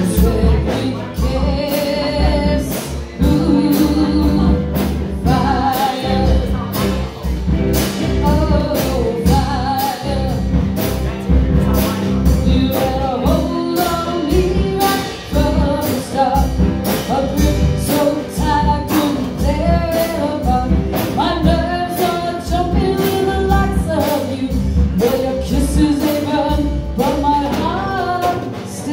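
Live band playing: a woman sings lead over two electric guitars, with drums keeping a steady beat.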